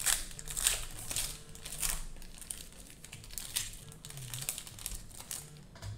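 Cellophane wrappers of Prizm basketball card cello packs crinkling as the packs are opened, in quick irregular crackles that are loudest in the first two seconds.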